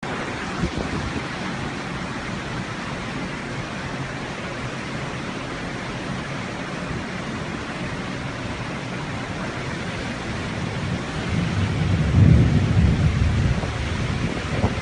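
Heavy rain falling as a steady hiss, with a low rumble that swells about eleven seconds in, peaks a second later and fades.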